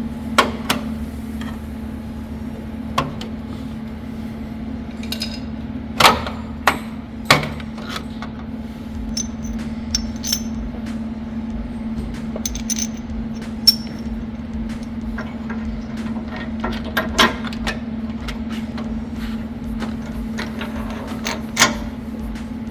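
Scattered sharp metal clanks and clicks of wrenches, bolts and steel plates being handled while bolting a winch mount to a bumper, the loudest a few seconds in. A steady low hum runs underneath.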